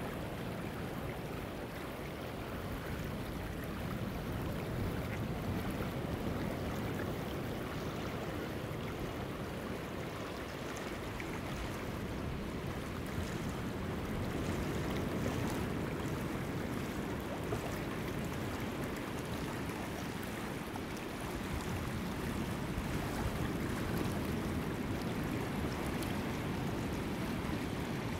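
Shallow river channel flowing over gravel: a steady rushing of moving water that swells and eases slightly, with a low rumble of wind on the microphone.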